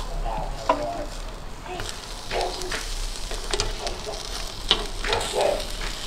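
Skewered meat sizzling on a hot round metal pan over a grill, with occasional sharp clicks as the metal skewers are turned.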